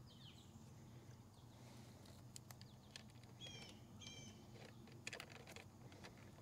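Near silence: faint outdoor ambience with a few light clicks of hands working a hose fitting onto an airless paint sprayer, and a bird chirping twice just past halfway.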